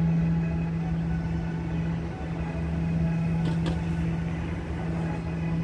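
A steady low mechanical hum holding one pitch, with a weaker deeper drone under it.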